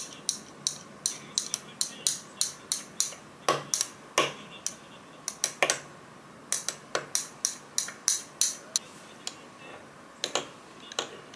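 Thin metal straw stirring coffee in a glass jar, clinking against the glass in quick irregular taps, about three a second, thinning out near the end.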